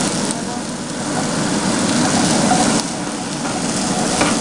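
Diced bell peppers sizzling in a hot non-stick frying pan without oil as they are stirred with a spatula; the sizzle eases slightly about three seconds in.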